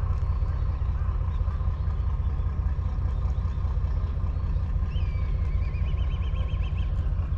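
Steady low rumble throughout. About five seconds in, a bird gives a call that drops in pitch and then warbles rapidly up and down for about two seconds.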